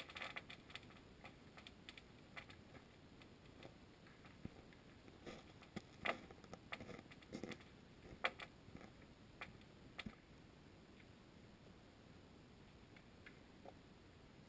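Faint, irregular clicks and taps over near silence, picked up by a GoPro in its waterproof housing under water. The clicks come in an uneven scatter and die away about ten seconds in.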